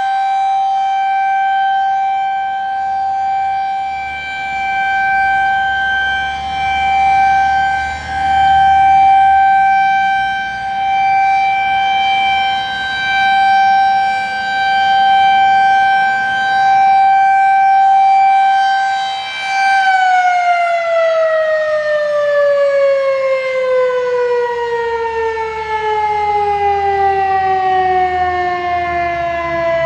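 Federal Signal 2001-SRN electromechanical outdoor warning siren sounding its steady, high-pitched alert tone during a monthly test, the level swelling and fading as the rotating head sweeps past. About two-thirds of the way in the tone starts to fall steadily: the siren winding down after power is cut.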